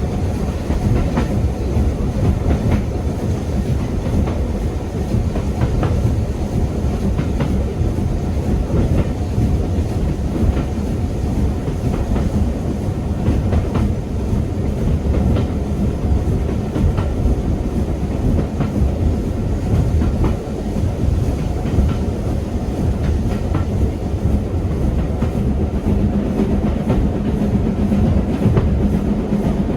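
Heritage railway coach running along the line: a steady low rumble with wheels clicking over rail joints at irregular intervals.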